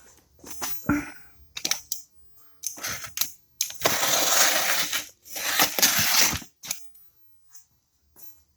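Cardboard shipping boxes being opened and handled by hand: a string of scrapes, knocks and rustles, with two longer rasping noises about four and six seconds in.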